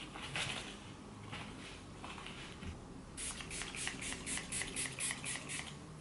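Pump bottle of face mist sprayed in a quick run of about a dozen short hissy spritzes, about five a second, starting about three seconds in. Before that there is faint handling noise.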